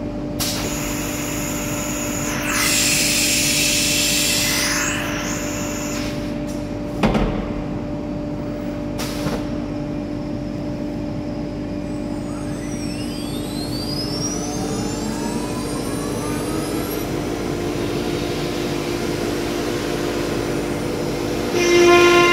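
STYLECNC STM2140C-2 dual-spindle ATC CNC router with 9 kW spindles, running with a steady whine while cutting a board. There is a burst of louder rushing noise about three seconds in and a sharp click about seven seconds in. Between about twelve and seventeen seconds, gliding tones rise and fall over the whine.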